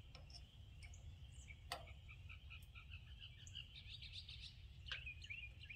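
Faint bird chirping over near silence, with a few light clicks from a grease fitting being threaded by hand into a tractor's PTO overrun clutch coupler.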